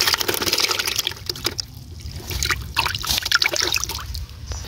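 Water splashing and trickling, dense for about the first second, then thinning to scattered drips and small splashes.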